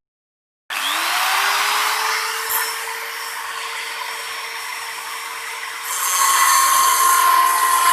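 Small electric motor switched on, whining up in pitch as it spins up, then running at a steady speed with a hissy, grinding noise; it grows louder about six seconds in.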